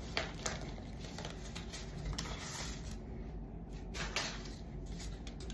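Rustling and crinkling of a pack of curly crochet hair being handled and opened, with a few sharp crackles.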